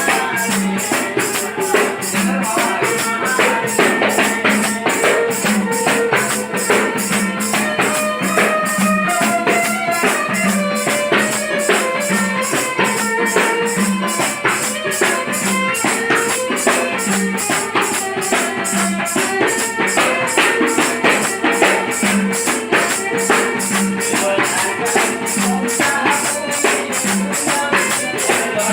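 Baul-style Bengali folk music: a stepping melody over a steady, quick jingling rhythm of hand percussion and a regular low drum beat.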